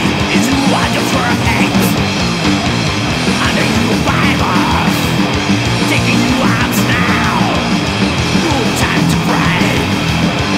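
Thrash metal recording at full level: distorted electric guitars playing, with repeated sliding, bending guitar lines over a dense, steady band sound.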